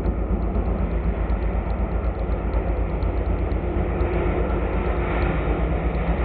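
Rally-raid race truck's diesel engine running hard along a dirt track, with a steady low rumble throughout, growing louder from about four seconds in as the truck approaches.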